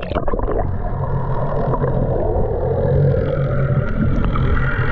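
Speedboat engine running steadily while under way: a low even hum under a steady rush of noise.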